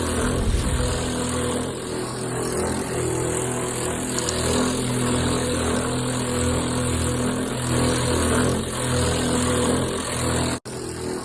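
Amanco plastic float valve in a water tank vibrating as water flows through it, a steady low drone with a pulsing hum. The valve probably cannot withstand the water pressure, so the vibration shakes the pipes and walls.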